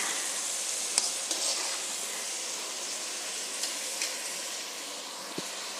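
Chopped onions and tomatoes sizzling in hot oil in a kadhai, frying down into the masala base, with a few light clicks; the sizzle slowly gets quieter.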